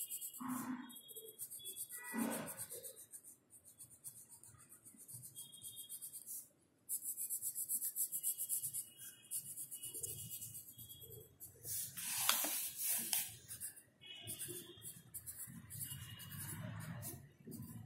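Graphite pencil scratching on notebook paper in quick strokes as a diagram is shaded and a word lettered, with a louder rustle about twelve seconds in.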